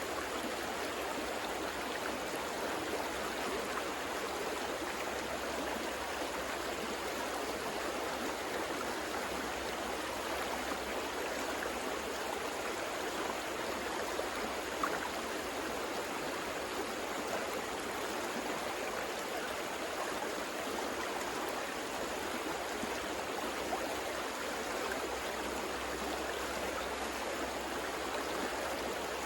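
River water flowing steadily over rocks, a continuous rushing with small splashes and gurgles.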